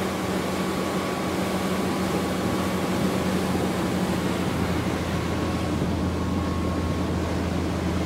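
Boat motor running at a steady cruising speed: a constant low drone under rushing wind and water noise as the boat moves across the lake.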